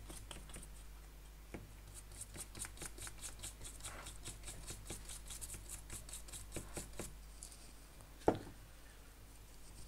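Rapid, rhythmic scrubbing strokes, several a second, as a freshly reballed A8 CPU is cleaned with a cleaning liquid. The strokes stop about seven and a half seconds in, and a single knock follows about a second later.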